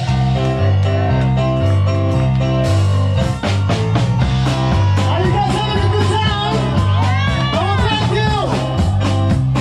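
Live rock band playing: drums keeping a steady beat under a repeating bass line, with electric guitar and keyboard chords. In the second half a bending melodic line comes in over the top.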